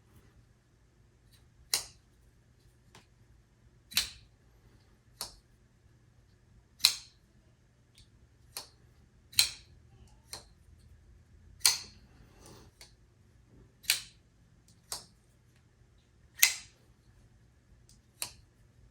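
Vero Engineering Mini Axon folding knife being thumb-flicked open and closed over and over. Its blade and lock make about a dozen sharp clicks, one every second or two, over a faint steady hum.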